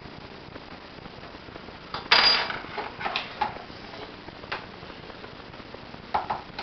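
A sharp metallic clatter about two seconds in, followed by a few lighter clicks and knocks: metal rifle parts and tools being handled during reassembly of a .22 rifle.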